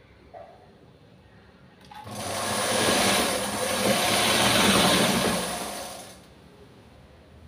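Hand-turned domestic sewing machine running in one stretch of stitching along a folded hem, starting about two seconds in and lasting about four seconds.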